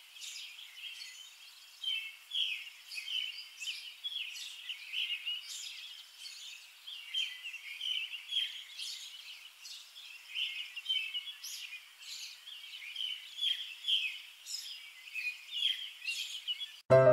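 Small birds chirping, a quick, unbroken run of short high calls.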